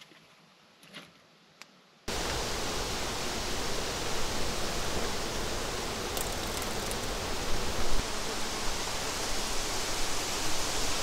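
A few faint clicks as fried bologna slices are set on a paper plate, then about two seconds in an abrupt cut to a loud, steady rushing noise that runs on unchanged.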